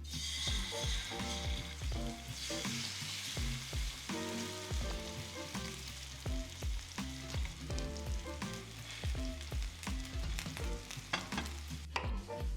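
Chicken breast frying in olive oil in a pan, with a steady sizzle that thickens a few seconds in. Background music plays throughout.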